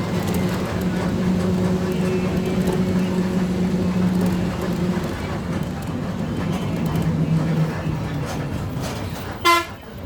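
Steady motor-vehicle engine and road noise while travelling. Near the end comes one short, loud toot of a vehicle horn.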